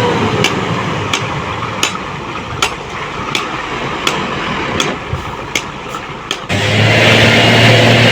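Vehicle engine noise with a sharp tick repeating about every three-quarters of a second. About six and a half seconds in, it switches abruptly to a louder, steady engine hum.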